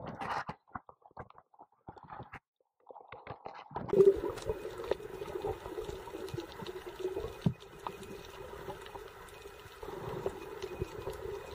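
Muffled underwater ambience heard through a submerged camera: scattered dull knocks at first, then, a few seconds in, a steady low hum with a dense crackle of faint clicks.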